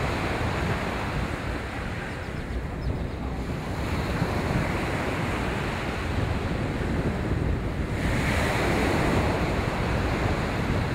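Surf washing on the shore, with wind buffeting the microphone. The wash swells louder and brighter about eight seconds in.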